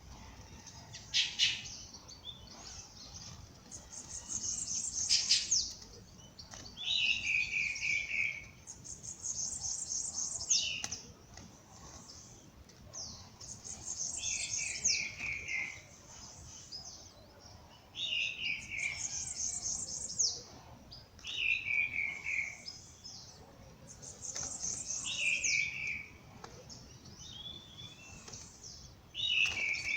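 Songbirds singing in a dawn chorus: phrases of fast, high, repeated notes alternating with shorter, lower phrases that fall in pitch, each coming every few seconds.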